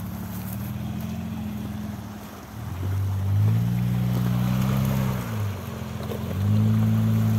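Off-road vehicle's engine under throttle: it picks up about two and a half seconds in, eases off briefly a little after five seconds, then picks up again and holds.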